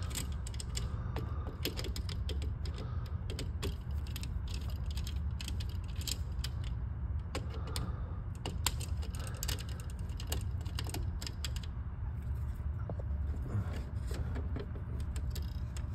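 Scattered small clicks and light rattles of hands working wires and hardware inside an electrical breaker panel, over a steady low hum.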